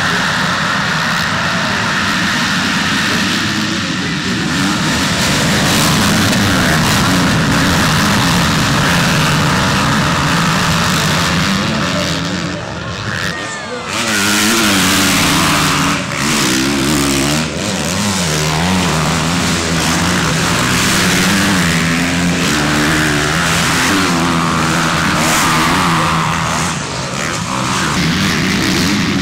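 Several motocross bikes racing: engines revving hard and shifting, the pitch rising and falling again and again as riders pass.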